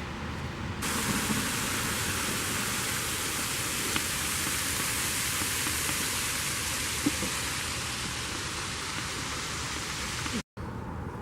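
Steady rushing hiss of falling water from a partly frozen waterfall. It starts abruptly about a second in and cuts off sharply near the end.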